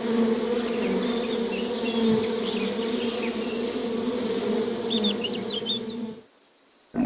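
Bees buzzing: a steady, even drone that stops about six seconds in.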